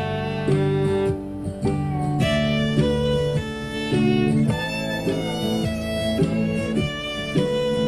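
Fiddle playing a line of separate bowed notes that change about twice a second, over a backing track of strummed acoustic guitar and bass following country chord changes.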